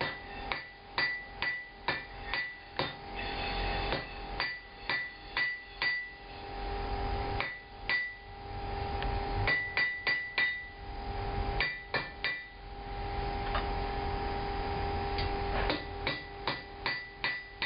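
Hand hammer striking hot steel on an anvil in runs of quick, ringing blows, about two a second, while the steel is drawn out to a point. Between the runs a steady hum carries on.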